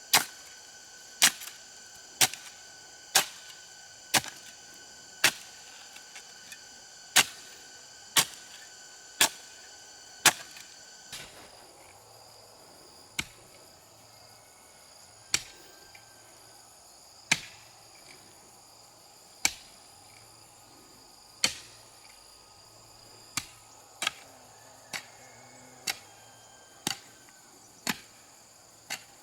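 A hand tool striking repeatedly with sharp blows. They come about once a second at first, then softer and less regular after about ten seconds. Steady high insect calls run underneath and stop about eleven seconds in.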